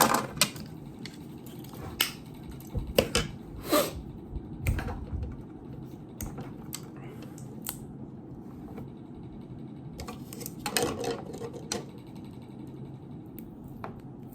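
Irregular clicks and taps of small plastic parts being handled and pried apart during disassembly of a battery-powered neck fan cooler, with a quicker run of clicks about ten seconds in.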